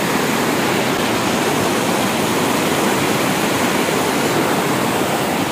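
Fast-flowing river water rushing with a strong current, a loud steady rush.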